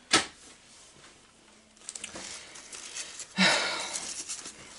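A sharp knock just after the start, then, from a little past the middle, loud rustling and crinkling as the black bag wrapped around a new compact impact wrench is picked up and handled.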